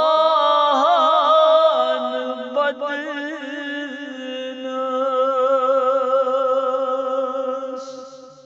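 Noha lament sung without instruments: a man's voice holds long, wavering notes with no words, fading out near the end.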